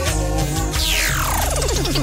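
Electronic DJ-mix music with a heavy, steady bass. About a second in, a synthesizer sweep falls steeply in pitch.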